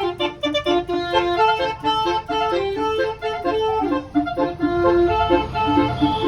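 Bus 'telolet basuri' multi-note horn playing a fast, reedy melody of held notes, with a low engine rumble coming up near the end.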